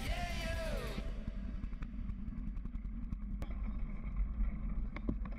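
A background song ends with a held, falling sung note in the first second. After it comes a steady low rumble of riding noise and wind on a mountain bike's handlebar camera, with a few sharp clicks and rattles from the bike.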